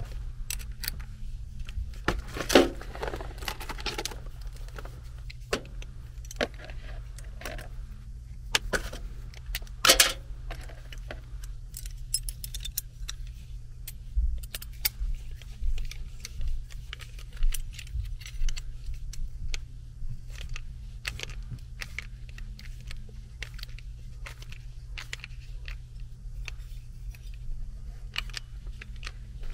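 Small metal parts clinking and rattling in the hands, a screw, a mounting plate and a hot surface igniter being fitted together. Light clicks are scattered throughout, with louder knocks about two and a half seconds and ten seconds in, over a steady low hum.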